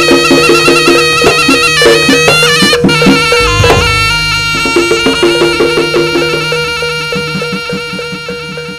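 Live Javanese jaranan ensemble music: a reedy, shawm-like wind instrument (the terompet) plays a wavering melody over drums and a repeating pitched percussion pattern. The music fades out slowly over the second half.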